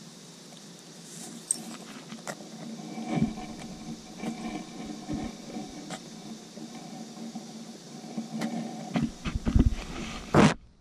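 A pug's metal collar tags jingling and clicking while the dog snuffles around and brushes against the camera. The clicks and bumps come more often and louder near the end.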